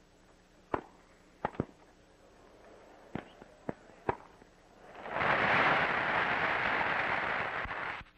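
Tennis rally: a string of sharp ball strikes off wooden rackets, about six in four seconds. Then a crowd applauding for about three seconds, cut off suddenly near the end.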